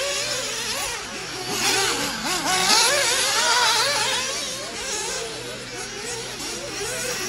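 Several radio-controlled off-road buggies running on a dirt track, their motors' pitch rising and falling with throttle, overlapping one another over a hiss of tyres on dirt.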